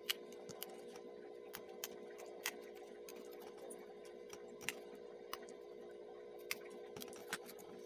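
Pre-cut paperboard tabs snapping and popping out of a 3D puzzle piece as they are pressed through with a pointed tool: scattered sharp clicks at an uneven pace, over a steady low hum.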